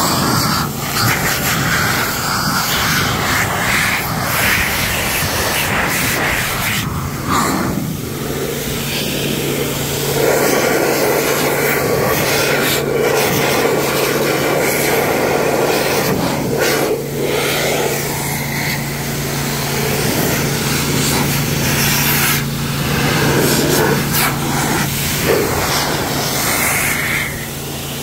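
Handheld car-drying blower running steadily, its air blast rushing over the wet paint. A steady low motor hum joins the rush about eight seconds in.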